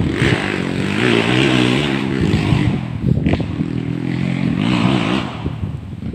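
A motorcycle engine running, its revs wavering up and down, in two stretches with a brief drop near the middle.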